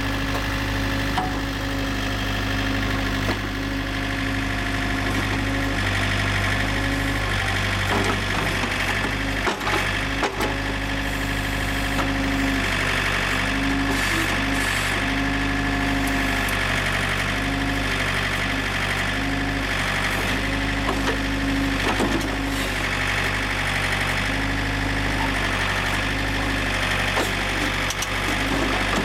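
Yanmar LX450 tractor's diesel engine running steadily while the backhoe works, with a few short knocks partway through.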